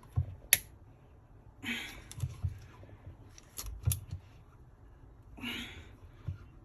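Handling noises from working at something with a tool: a series of sharp clicks and knocks, with two short scraping rustles.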